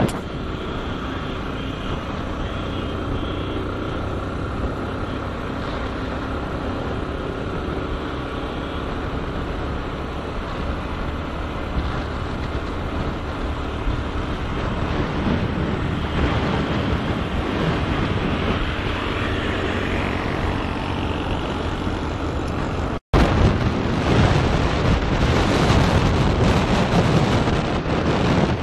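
Steady engine and road noise from a moving vehicle, with wind buffeting the microphone. The sound drops out for an instant about three-quarters of the way through, then comes back louder and gustier.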